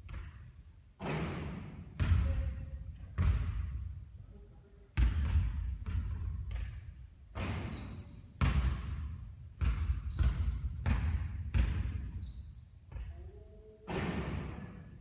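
Basketball bouncing hard on a court, about a dozen bounces roughly a second apart, each ringing out briefly, with a few short high squeaks in between.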